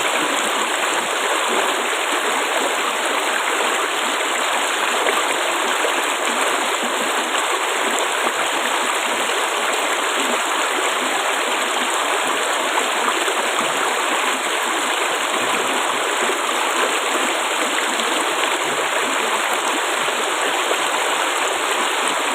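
Flowing water babbling steadily, a constant rushing and gurgling.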